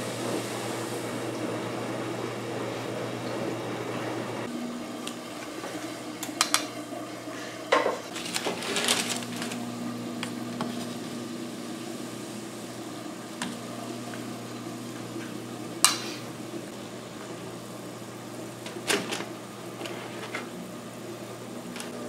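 Baking-soda water boiling in a stainless-steel pot with a pretzel in it, with metal tongs clicking against the pot several times as the pretzel is turned in the water.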